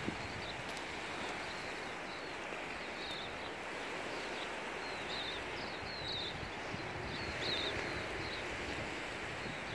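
Small lake waves lapping and washing on a pebble shore, a steady rush of water. Over it, a small bird chirps again and again in short, high calls.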